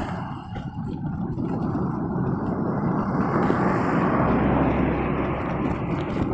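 Steady rushing wind noise on the camera microphone of a bicycle coasting downhill, mixed with the hum of its tyres on the asphalt; it swells a little in the middle.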